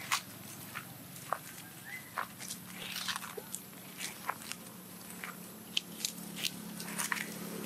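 Scattered light crunches and crackles of dry leaves and grass as baby macaques scamper over leaf litter, with a brief rising chirp about two seconds in.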